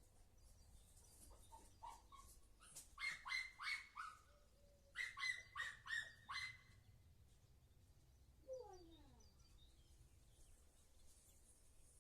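Animal calls: two quick runs of short, bark-like calls, then a single call sliding down in pitch.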